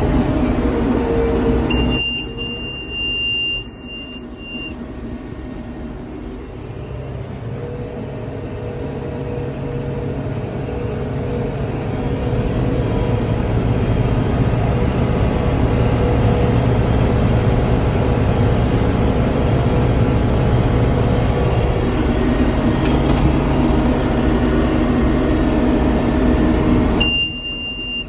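Tym tractor's diesel engine running steadily while driving a Vermeer 504L round baler, getting louder over the first half. A steady high beep sounds for a few seconds about two seconds in and again near the end.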